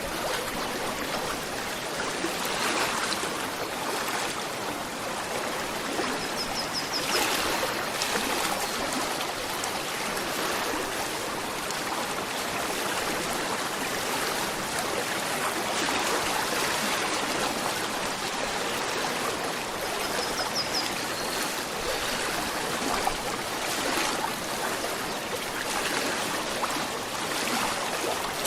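A gently flowing river, its water trickling and babbling steadily over the whole stretch with no break.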